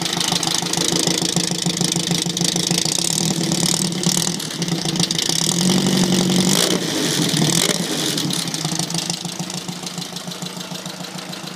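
1973 VW Beetle's 1641 cc air-cooled flat-four engine running at idle with a chugging, tractor-like note. It gets louder around the middle and eases off toward the end.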